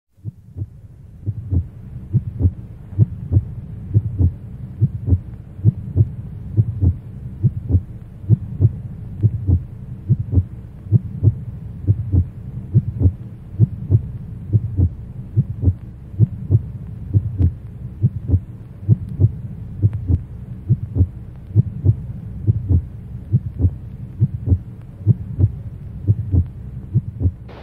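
Heartbeat sound effect: a steady double thump, lub-dub, about once a second, over a low steady hum.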